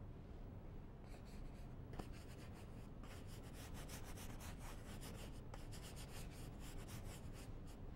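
Paintbrush scrubbing oil paint onto a stretched canvas in many quick, short strokes, a faint repeated scratching that picks up about a second in.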